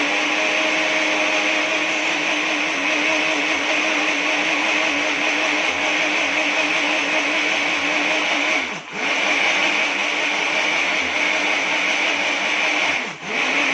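Electric blender running steadily, grinding raw pumpkin seeds with milk into a drink. Its motor briefly dips twice, about two-thirds of the way through and again near the end.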